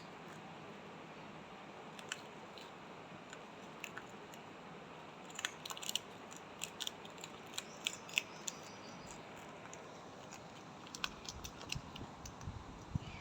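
A parrot's beak clicking and crunching on something, in irregular sharp snaps that bunch up about halfway through. A few soft low knocks come near the end.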